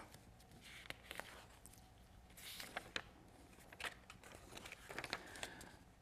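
Near silence: quiet room tone with a few faint clicks and a soft rustle about two and a half seconds in.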